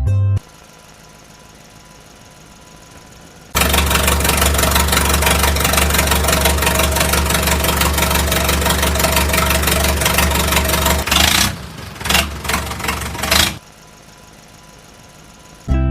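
A motor runs steadily for about seven seconds, then cuts in and out in several short bursts before stopping.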